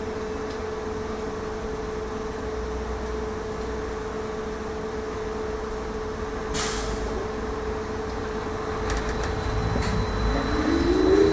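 Trolleybus standing in traffic with a steady electric whine. A short hiss of released air comes about six and a half seconds in. Near the end the traction motor's whine rises in pitch and grows louder as the trolleybus pulls away.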